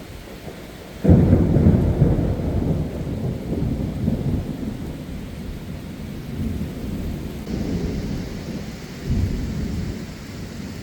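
Thunder in a heavy downpour: a sudden crash of thunder about a second in rolls on as a long rumble that swells again near the end, over the steady hiss of heavy rain.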